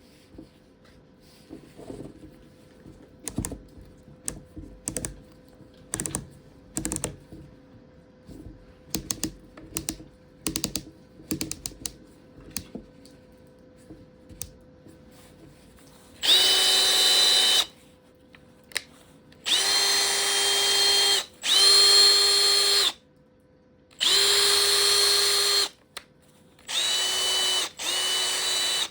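Makita DF470D cordless driver drill, run without its chuck: handling clicks and knocks for the first half, then the motor run in about six short bursts. Each burst spins up with a rising whine, holds steady for a second or two, and stops.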